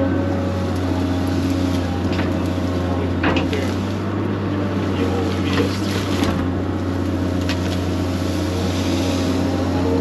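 Excavator diesel engine running steadily under load while digging, with a few short knocks and cracks as the bucket works through roots and brush.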